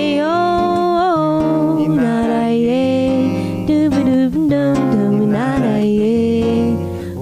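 Acoustic guitar accompanying a male and a female voice singing a wordless vocal line in long held notes that glide from pitch to pitch.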